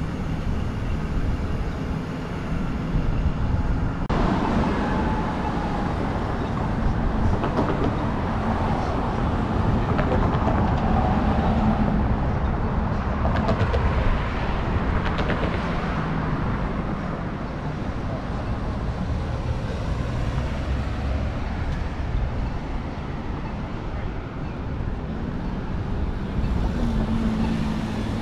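City street ambience: vehicle traffic passing, with a steady low rumble that fills out about four seconds in.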